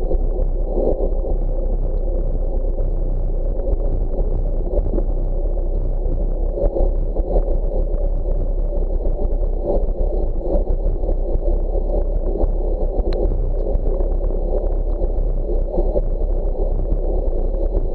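Wind rushing over the microphone of a bicycle-mounted camera while riding at speed, a steady low rumble that buffets unevenly.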